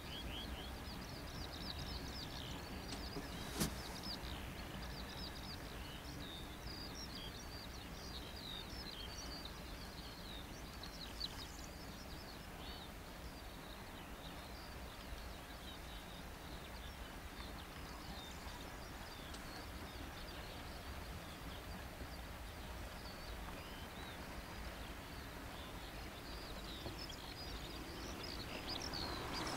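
Small birds chirping repeatedly over a steady low rumble of a distant freight train. One sharp click about three and a half seconds in, and near the end the sound of approaching diesel locomotives grows louder.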